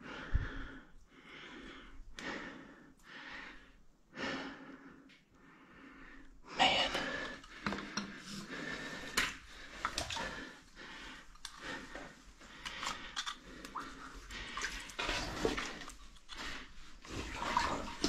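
A person breathing hard and evenly, about one breath a second, in a cramped rock passage. From about six seconds in, louder splashing, knocking and scraping as they crawl through shallow water.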